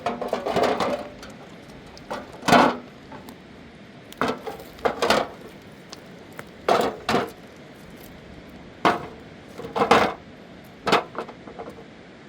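Hard objects knocking and clacking together about ten times at uneven intervals, a few strikes ringing briefly.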